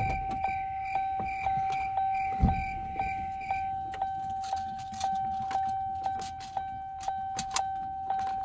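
Pickup truck's warning chime dinging over and over, about two and a half dings a second, as when a door stands open. It cuts off suddenly at the end, and there is a dull thump about two and a half seconds in.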